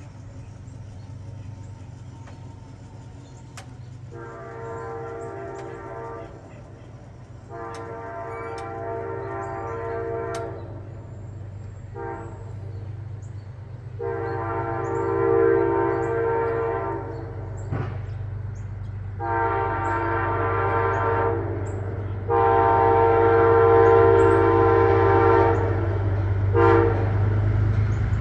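Air horn of an approaching Amtrak diesel passenger locomotive sounding the grade-crossing signal. It gives two long blasts, a short one and a long one, then two more long blasts, the last held for about five seconds, each louder than the one before. The train's low rumble grows underneath as it nears.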